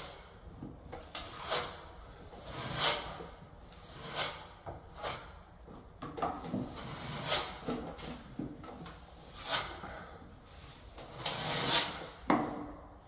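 Wide steel plastering trowel scraping stiff filler onto a ceiling-to-wall angle in repeated swipes, roughly one a second.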